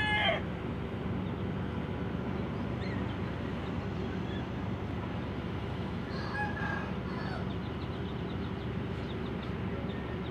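Steady low drone of a ship's engine, with the end of a rooster's crow right at the start and a fainter crow about six seconds in.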